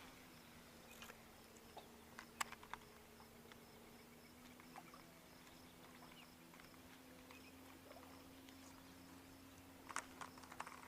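Near silence: a faint steady low hum with a few faint, scattered clicks and ticks.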